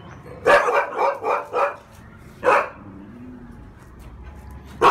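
Thai Ridgeback dog barking: a quick run of about five barks, a single bark a second later, then another run of barks beginning near the end.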